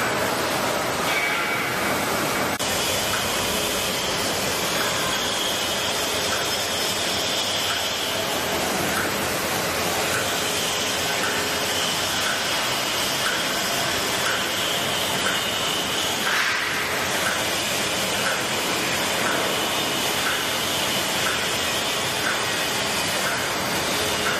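Toilet roll packing machine for plastic film running: a steady mechanical hiss and hum with a short regular tick about three times every two seconds.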